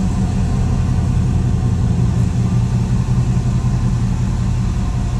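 Dodge Ram 1500's 5.9-litre V8 idling steadily while the truck is backed slowly out of the service bay.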